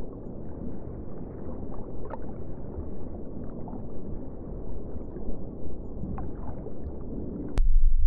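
Underwater ambience: a steady wash of water noise with a few faint rising chirps, switching abruptly to a louder, deeper rumble near the end.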